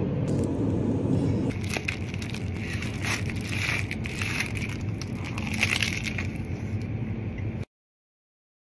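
Plastic film wrapper of a triangle kimbap crinkling and crackling as it is pulled open by hand, in a rapid irregular run of crinkles. It cuts off suddenly near the end.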